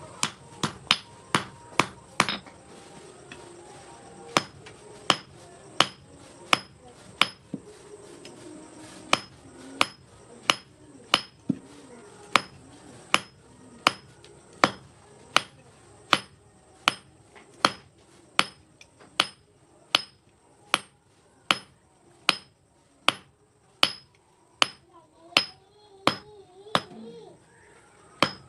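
Blacksmith's hammer striking hot steel on an anvil while forging an S hook: steady blows, about four every three seconds, each with a brief metallic ring. There are two short pauses, about three seconds in and about eight seconds in.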